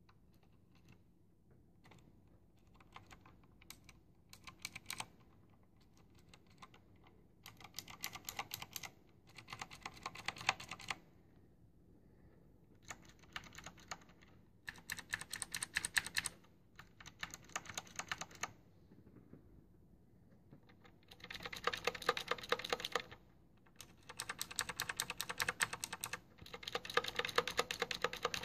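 Rapid typing on a mechanical keyboard with Cherry MX Blue switches, in bursts of a second or two with short pauses between them. The clicks start sparse and get denser and louder later on. The uploader holds that these switches are not clicky.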